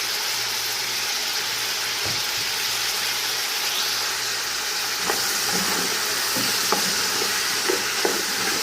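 Vegetables frying in hot oil in a pot with a steady sizzle. From about five seconds in, a spoon scrapes and knocks against the pot as they are stirred.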